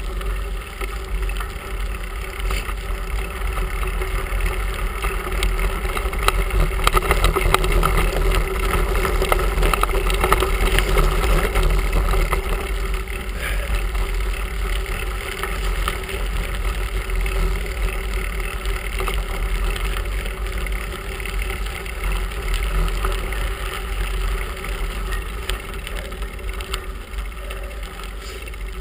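Bicycle rolling along a gravel carriage road, heard from a handlebar-mounted camera: a steady rush of wind on the microphone over the rumble of the tyres on gravel, a little louder for a few seconds in the middle.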